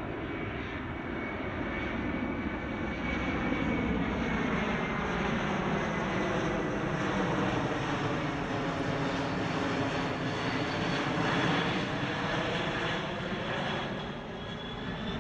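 Boeing C-17 Globemaster III's four turbofan engines running as it passes low overhead on approach with its landing gear down: a steady jet roar with a whine that slowly falls in pitch, swelling and then easing slightly near the end.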